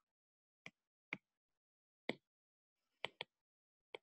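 A stylus tapping and clicking on a tablet screen while writing: about six short, sharp clicks, irregularly spaced, with two close together about three seconds in.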